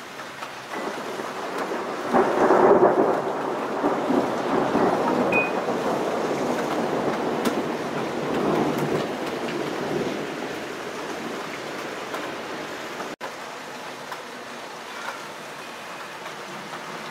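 Thunder rolls in about two seconds in, loudest at first, rumbling on in swells for some ten seconds and then fading, over a steady hiss of rain.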